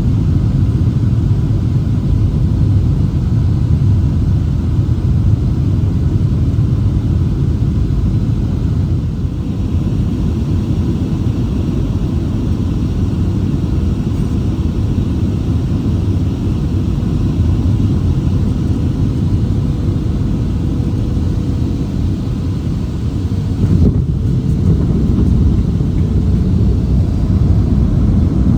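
Cabin noise of a Boeing 737-700 airliner landing: a steady low rumble of engines and airflow through touchdown and the landing roll. There is a slight drop in level about nine seconds in and a single knock about twenty-four seconds in.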